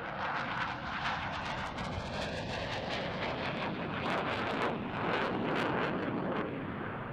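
Boeing F-15QA's twin General Electric F110 turbofan engines at high power during a hard manoeuvre: a dense jet rush with a rapid crackle that grows louder through the middle and eases near the end.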